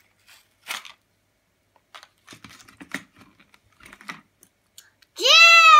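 Light plastic clicks and rattles as a toy train engine and tender are worked out of a clear plastic packaging tray. Near the end a child gives a loud, long high call that jumps up in pitch and then slowly falls.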